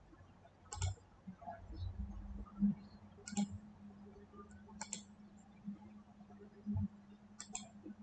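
Computer mouse clicking: a handful of sharp single clicks a second or more apart, two in quick succession near the end, over a faint low hum.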